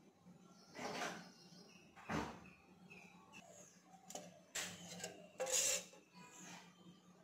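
Kitchen handling sounds: a few short knocks and scrapes of utensils and cookware, with a low thump about two seconds in and the loudest clatter about five and a half seconds in, over a faint steady hum.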